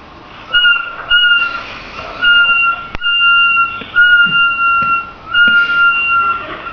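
High-pitched whistle-like tone sounded six times in a row, each note held for about a second at a nearly steady pitch with short breaks between.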